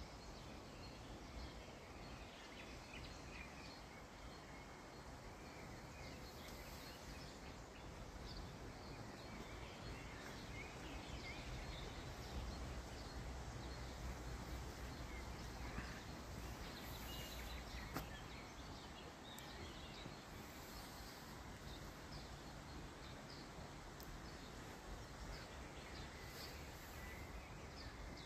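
Faint, steady open-air background noise with scattered short bird chirps and calls.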